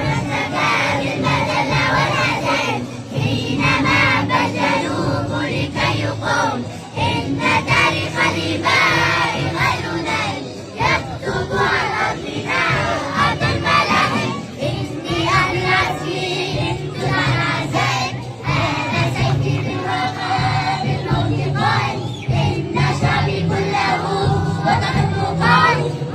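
A group of children singing together, with musical accompaniment.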